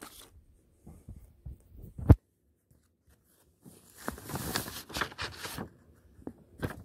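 A vinyl LP being slid out of its paper sleeve: a single thump about two seconds in, then about two seconds of paper rustling and scraping with small clicks.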